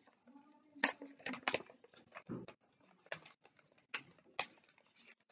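Sheet of paper being handled and folded: a series of sharp crinkles and creasing crackles, several close together in the first couple of seconds, then a few more spaced apart.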